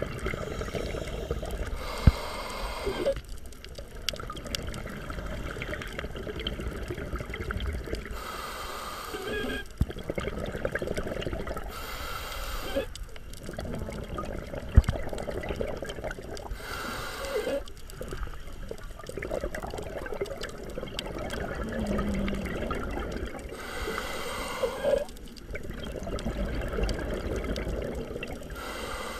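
Scuba diver breathing underwater through a regulator: a hissing inhale every few seconds, each followed by a stream of exhaled bubbles.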